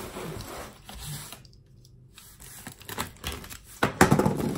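Cardboard scraping and rustling with sharp knocks as the flaps of a large cardboard box are pulled open and folded back, loudest about four seconds in.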